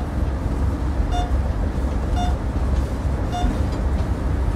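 Patient monitor beeping its pulse tone: four short beeps at one pitch, roughly a second apart. Under them runs the steady low rumble of the ambulance's engine.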